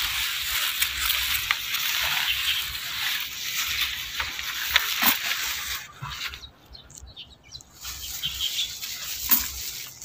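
Cassava leaves rustling as they are picked by hand, with a few sharp snaps of leaf stalks. The rustling drops away for a couple of seconds about six seconds in, then resumes.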